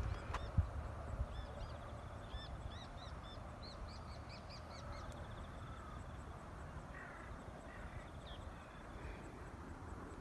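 Birds chirping in quick series of short calls, most of them in the first half, over a steady low rumble of wind on the microphone, with a faint insect trill behind.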